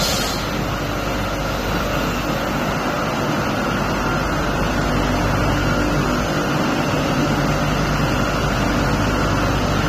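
Steady noise of running machinery, with a constant hum and a few steady tones that hold at one level throughout.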